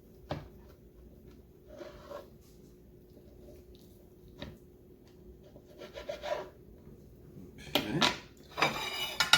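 A large knife sawing and scraping through a soft, microwaved pizza: scattered light scrapes and taps, then two louder sawing strokes near the end.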